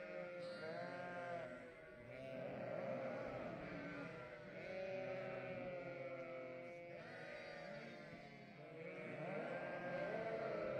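A flock of ewes and young lambs bleating, many calls overlapping one another without a break.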